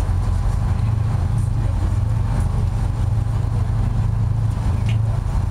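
Tour boat's engine running steadily: a constant low drone.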